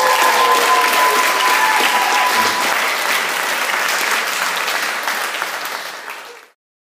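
Theatre audience applauding at the end of a song. One long held tone sits above the clapping for the first two and a half seconds. The applause thins slightly, then cuts off abruptly near the end.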